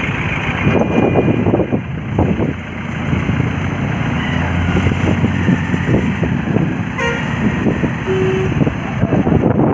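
Heavy road traffic, with large trucks running past, and a couple of short horn toots, one about a second in and another near the end.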